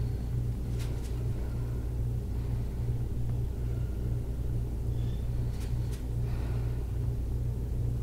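Steady low hum with no speech, dipping slightly a few times a second, with two faint clicks.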